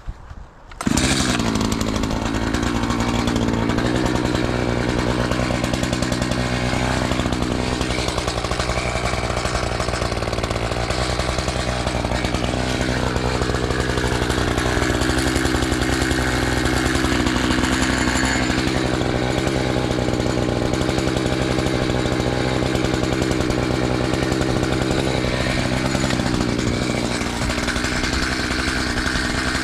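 Gas chainsaw comes in suddenly about a second in and runs steadily with a slightly wavering pitch, cutting into a felled tree that is hung up in other trees.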